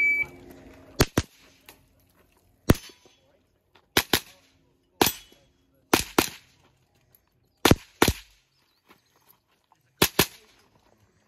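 A competition shot timer beeps once at the start. A custom .22 rimfire rifle then fires about a dozen shots, mostly as quick double taps, with pauses of roughly a second between strings as the shooter moves from target to target.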